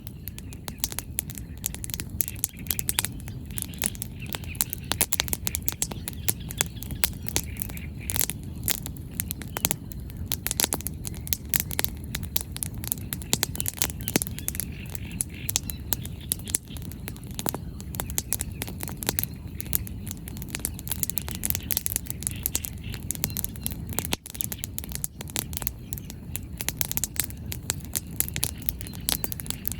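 Wood bonfire crackling, with frequent sharp pops and snaps of burning firewood over a steady low rush.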